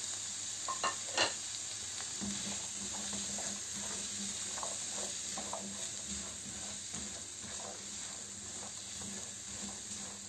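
Chicken and chopped carrots and capsicum sizzling in a non-stick frying pan while being stirred with a spatula, with short scrapes and taps of the spatula on the pan, a couple of louder ones about a second in.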